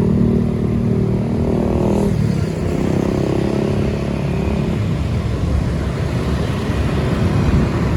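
Road traffic: a vehicle engine's steady drone that cuts off about two seconds in, then a low traffic rumble.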